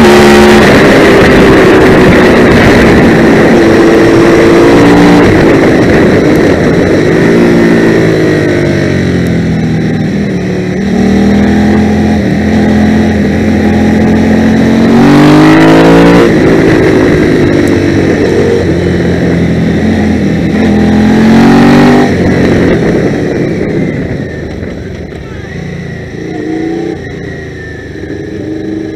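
A 650cc twin-cylinder race motorcycle engine, heard from an onboard camera, revving hard with its pitch climbing again and again through the gears, over a rush of wind. About three-quarters of the way through the revs drop away, and the engine runs quieter at low revs as the bike slows.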